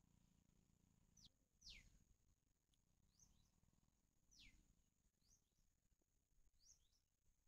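Near silence with a handful of faint, short bird chirps, most sliding down in pitch, spaced a second or so apart.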